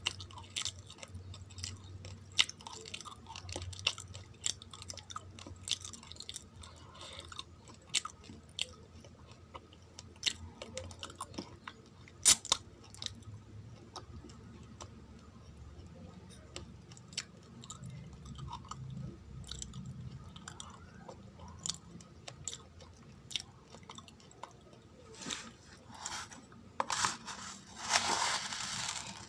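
Close-up crunching and chewing of uncooked rice grains, with many sharp, irregular crunches. Near the end comes a louder, noisy rustle lasting about two seconds.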